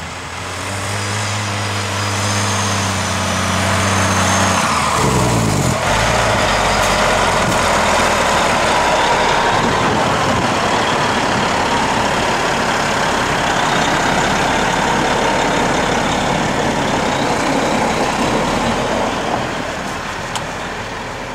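Milk tanker truck's diesel engine approaching and driving past close by on a snowy lane. The engine note drops in pitch about five seconds in, the sound is loudest through the middle as the truck passes, and it fades near the end as it moves away.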